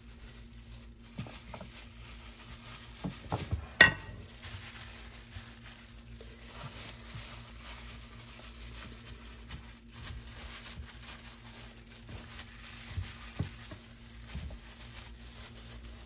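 Seasoned potato slices being set down one by one in a glass baking dish by a hand in a plastic glove: soft taps and clicks on the glass with rustling of the glove. One sharper clack about four seconds in, over a steady faint hum.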